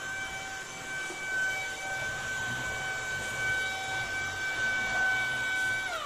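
Tineco A10 cordless handheld vacuum running steadily with its mini motorized brush head, a high even whine. At the very end it is switched off and the whine falls away as the motor spins down.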